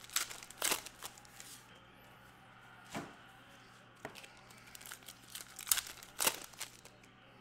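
Crinkly wrapper of a Panini Contenders football card pack being torn and crumpled, in short bursts: several at the start, one or two in the middle and another cluster near the end.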